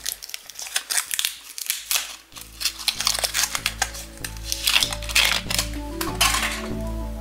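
Thin aluminium foil wrapper crinkling and crackling as it is peeled and torn off a hollow chocolate Easter bunny, loudest about five seconds in. Background music runs underneath, dropping out for the first two seconds and then returning.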